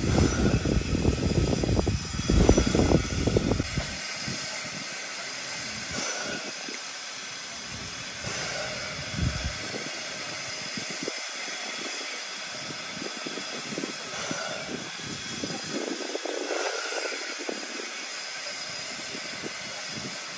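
JNR Class C11 tank locomotive No. 171 standing with steam hissing steadily from it. A loud, irregular low rumble covers the first four seconds.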